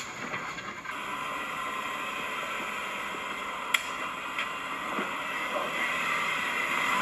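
Four-wheel-drive vehicle running on an off-road track, heard as a steady even noise with no clear engine note, with one sharp click a little past the middle.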